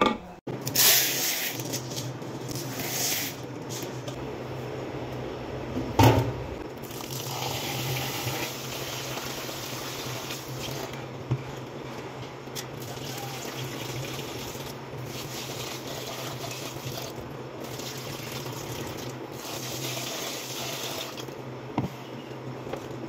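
Water running from a kitchen tap into a steel sink as a plastic bowl is rinsed by hand, with one sharp knock about six seconds in.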